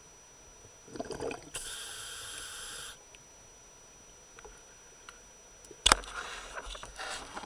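Scuba diver breathing through a regulator underwater: a steady hiss of an inhalation from about a second and a half to three seconds in. Near the end a sharp knock is followed by an irregular bubbling crackle of exhaled bubbles.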